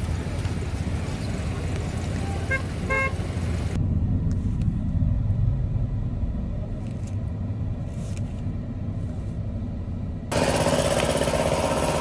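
Road traffic: vehicle engines rumbling low, with a couple of short car-horn toots about three seconds in. The background changes abruptly twice, a few seconds in and again near the end.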